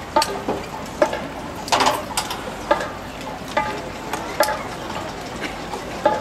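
Marching band pit percussion equipment being wheeled on carts: irregular knocks and metallic clanks, some briefly ringing, over a steady hiss of outdoor noise.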